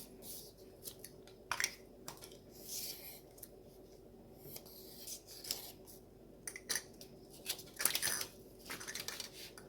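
A handheld circle cutter's blade cutting scrapbook paper: irregular scratchy strokes as the cutter is turned round, with sharp clicks and paper handling between them.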